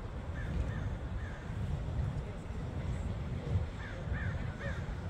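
A crow cawing in short calls: a couple about half a second in, then a quick run of about five near the end, over a steady low rumble.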